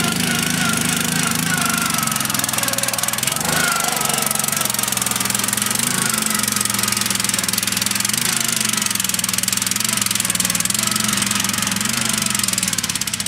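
Racing ride-on lawn mower's engine running hard as it climbs a steep grass slope, its pitch wavering slightly under load.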